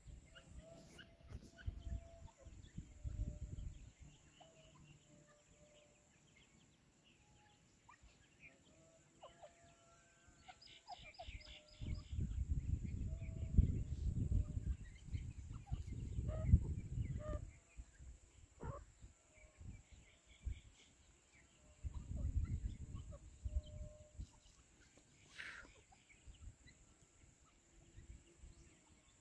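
Grey francolins give soft, short clucking notes here and there, with a quick rattling series about eleven seconds in. A low rumbling noise comes and goes three times and is louder than the calls.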